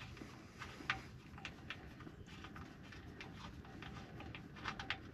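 Faint, scattered clicks as the oil drain plug of a 6.7L Powerstroke's oil pan is spun out by hand, with a few sharper clicks close together near the end as the plug comes free.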